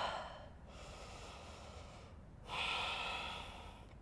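A woman's deliberate, paced breathing, in through the nose and out through the mouth: one breath trailing off in the first half second, then another long breath of about a second starting about two and a half seconds in.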